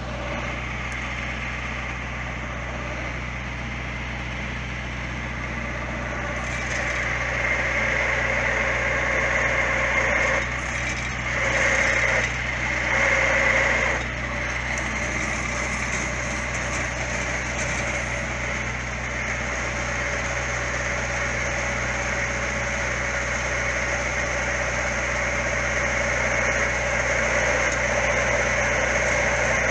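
Tractor engine running steadily, driving the hydraulics of a grab crane loading manure. The engine note grows louder about a quarter of the way in and swells in a few short surges up to about halfway, as the hydraulics take load.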